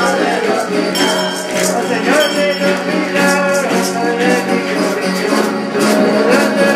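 A group singing a devotional alabanza together to strummed stringed instruments, with a gourd rattle shaken along with the strumming.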